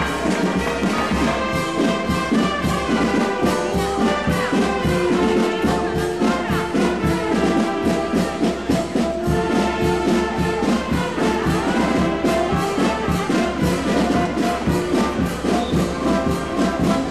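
Brass band playing, with trumpets and trombones holding notes over a steady run of sharp attacks.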